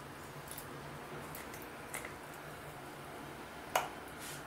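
Faint steady low hum with a few light clicks and taps from a plastic ice-cube tray being handled and put aside, and one sharper click a little before the end.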